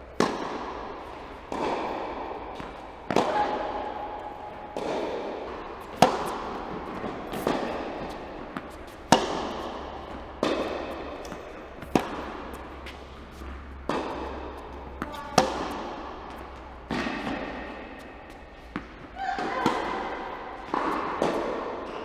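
Tennis rally on an indoor hard court: a sharp racket-on-ball hit about every second and a half, alternating between the two players, each followed by a long echo through the hall, with softer ball bounces between the hits.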